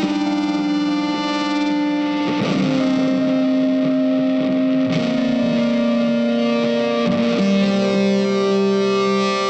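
Background music: sustained, effected guitar chords that change with a strum about every two and a half seconds.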